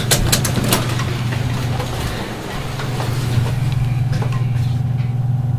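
Otis hydraulic elevator running, a steady low hum as the car starts up and rises, with a few quick clicks in the first second.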